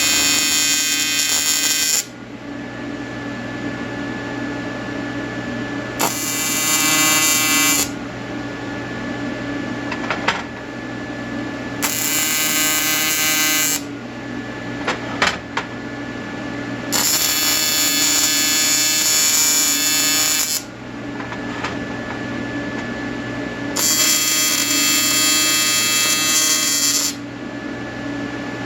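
Welding arc buzzing in repeated bursts of one to three seconds, about five of them, with a steady electrical hum in the pauses between and a few sharp clicks.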